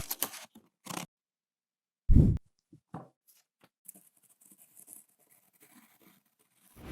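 Handling sounds of sewing work with fabric and tools: a few short clicks and scrapes, one loud low thud about two seconds in, then scattered faint ticks and rustles.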